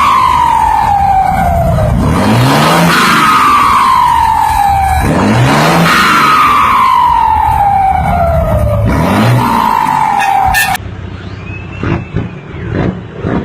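Mercedes-Benz truck diesel engine revved about three times. After each rev comes a long falling whistle as the turbocharger, fitted with a 'pente' (a comb in the turbo intake), spools down. About 11 seconds in the sound cuts off abruptly to a quieter, muffled recording.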